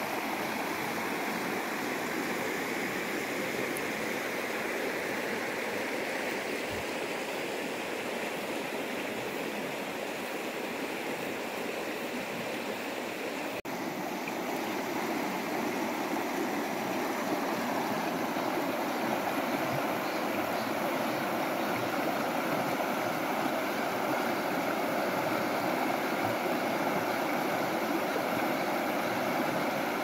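Shallow mountain stream rushing over rocky rapids: a steady rush and splash of water, a little louder in the second half after a brief dropout near the middle.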